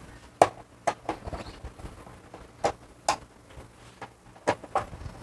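Sharp plastic clicks and knocks, about seven in all, spread through the few seconds, as the plastic board cover of a washing machine's control panel is unclipped and lifted off.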